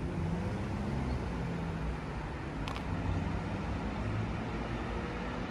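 City road traffic: a steady low rumble of cars, with one short tick about two and a half seconds in.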